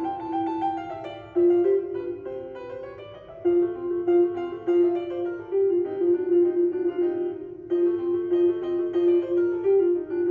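Background piano music: a light melody of steady notes with rising runs.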